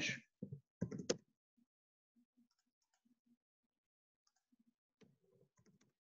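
Computer mouse and keyboard clicks from drafting on a PC: one sharp click about a second in, then a few faint scattered clicks in a near-silent room. A man's voice trails off in the first second.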